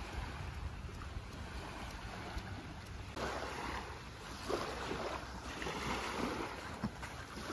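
Wind rumbling on the microphone, with small waves lapping on a sandy shore that grow louder from about three seconds in.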